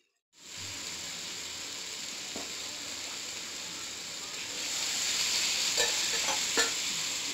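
Bitter gourd pieces sizzling in hot oil in a steel pan. About four and a half seconds in, water is poured in and the hiss grows louder, with two light metal clinks soon after.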